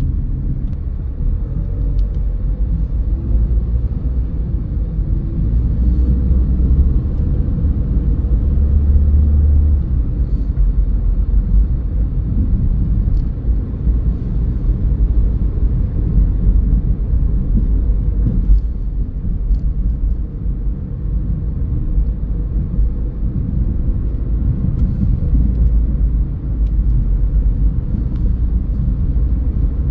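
Car driving along a road: a steady low rumble of engine and tyre noise. Faint tones waver up and down in the first ten seconds or so.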